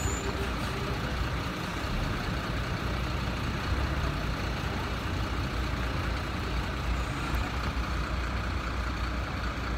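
Diesel engines of heavy fire trucks running steadily as a convoy rolls through a roundabout, a low rumble throughout. A repeated beep is heard in the first second.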